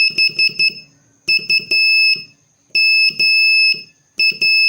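Morse code sent as high-pitched beeps at one steady pitch, spelling the word "bump": B (dash, three dots), U (two dots, a dash), M (two dashes), then the start of P near the end.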